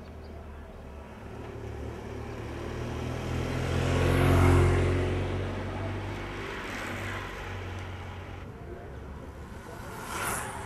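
A motor vehicle going past, its engine hum growing to a peak about four and a half seconds in and then fading away. A short whoosh comes near the end.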